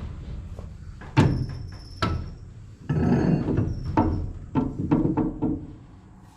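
Metal parts knocking and clanking as a part is worked onto a corn head stalk roll shaft: two sharp ringing strikes about a second apart, a short scraping stretch, then a run of quicker knocks.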